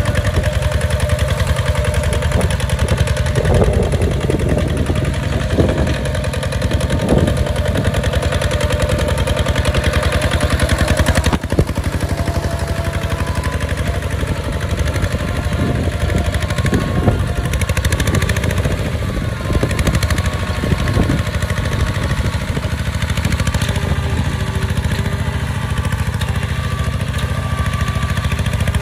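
Kubota RT140 single-cylinder diesel engine of a two-wheel walking tractor running steadily under load as it pulls a plough through soil, with a rapid even chugging. The sound breaks briefly about eleven seconds in.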